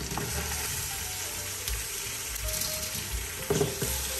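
Raw mutton pieces sizzling as they drop into hot oil with onions and ginger-garlic paste in a pressure cooker: a steady frying hiss, with a few knocks about three and a half seconds in.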